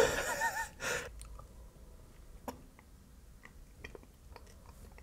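A person chewing a mouthful of creamy vegan tuna salad, with faint scattered soft mouth clicks, after a short breathy sound at the start.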